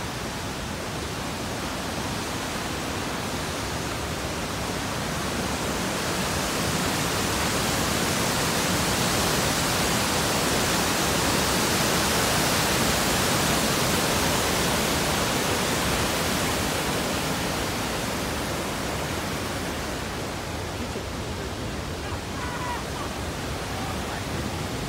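The Great Falls of the Passaic River rushing into its rock gorge as a steady, even wash of water noise. It grows louder toward the middle and eases off near the end.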